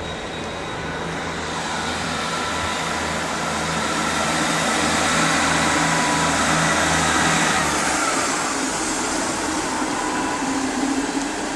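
Class 158 diesel multiple unit departing: a steady diesel engine note over the rumble of the train, growing louder to a peak about six or seven seconds in. The engine note drops away about eight seconds in, leaving the fading running noise.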